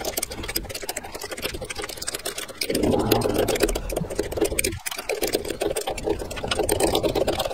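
Rapid metallic clicking of a 10 mm spanner ratcheting on the bolts that clamp a planer thicknesser's knife in its cutter block, as the bolts are loosened one after another. The clicking comes in runs, with louder stretches about three seconds in and again near the end.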